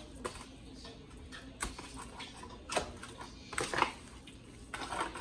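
Hands mixing seasoned raw pork chops in a disposable aluminium foil pan: the thin foil crinkles and knocks irregularly, about half a dozen short sharp sounds.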